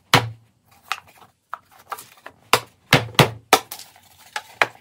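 Thin finger-jointed wooden box sides knocking and clacking together and against the workbench as the glued tray is folded closed and its joints pushed home: about a dozen sharp, irregular wooden clicks, busiest about three seconds in.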